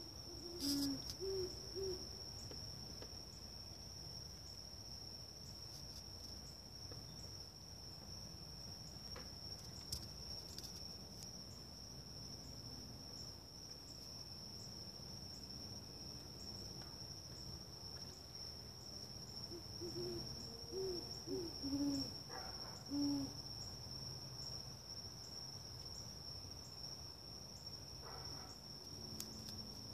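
Great horned owl hooting: a few deep hoots about a second in and a longer series of about five hoots two-thirds of the way through. A steady high-pitched insect trill runs underneath.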